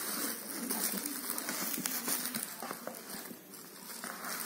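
Rustling, scraping and crinkling of a cardboard box and its bubble wrap being handled, with small irregular clicks, as a wall clock is slid out of its packing.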